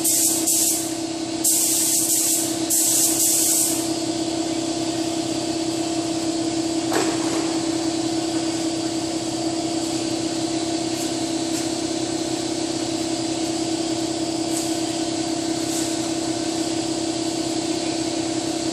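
Air spray gun hissing in two passes of a couple of seconds each as paint is sprayed, over a steady machine hum that carries on alone once the spraying stops. A single knock about seven seconds in.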